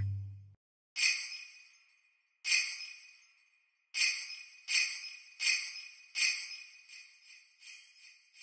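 Jingle bells shaken as a count-in: two strokes a second and a half apart, then four quicker ones, followed by fainter, lighter jingles.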